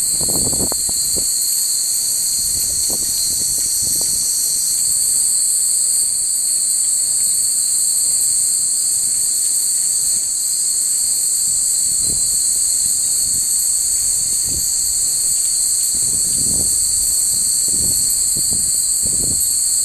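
A steady, high-pitched chorus of summer insects shrilling without pause, with gusts of wind rumbling on the microphone near the start and several more times in the second half.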